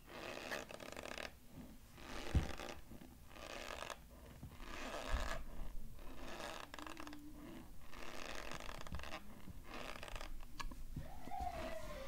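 Cornstarch being chewed: repeated squeaky, crunchy bursts, roughly one a second.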